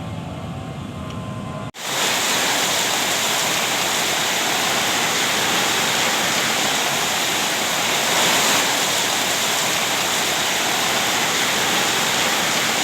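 A low rumble, then after an abrupt cut about two seconds in, rain pouring down in a steady hiss.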